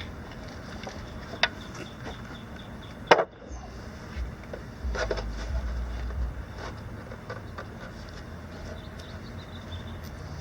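A sharp knock about three seconds in, the loudest sound, with a smaller click before it and a few faint taps, over a steady low hum.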